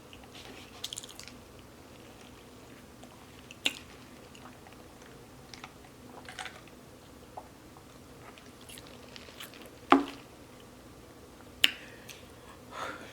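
A person eating close to the microphone: chewing and mouth noises, with a few sharp clicks scattered through.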